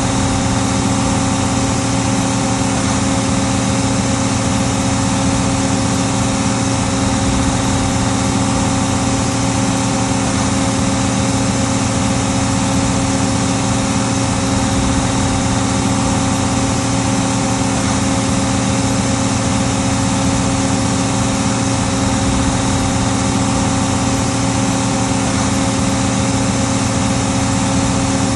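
1976 Case 1570 tractor's diesel engine running steadily at one even pitch and level while pulling a five-bottom plow.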